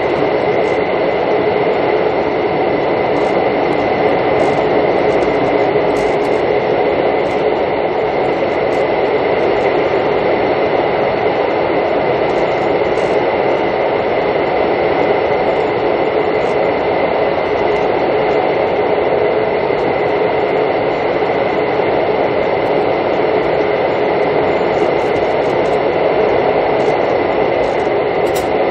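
Steady running noise inside a Mugunghwa-ho passenger coach moving at speed: a constant hum and rumble with a thin steady whine over it.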